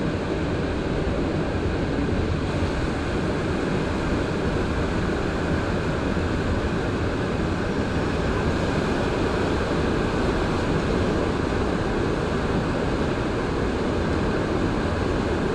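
Montreal Metro MR-73 rubber-tyred train running along the line, heard from inside the car: a steady, loud rumble that holds level throughout.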